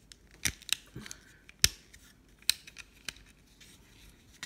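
Plastic parts of a Transformers Dinobot action figure clicking as they are folded and pegged together by hand: a handful of sharp, irregular clicks, the loudest about one and a half seconds in.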